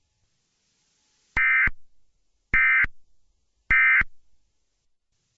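Emergency Alert System end-of-message code: three short, identical bursts of SAME digital data tones, a raspy electronic chirp about a second apart, marking the end of an alert message.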